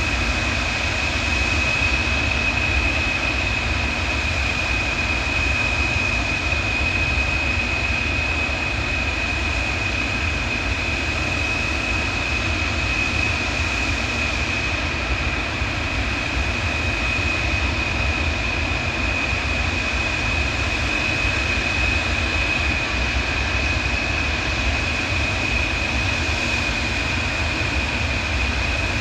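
Turbofan jet engines of a large Antonov cargo aircraft running steadily, a constant high whine over a low rumble.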